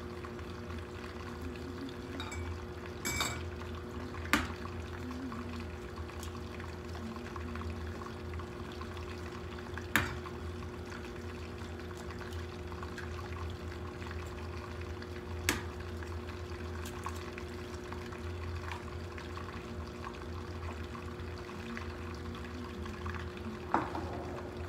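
Steady low hum of a kitchen, with four or five sharp clinks of dishes being handled at the counter, each ringing on briefly.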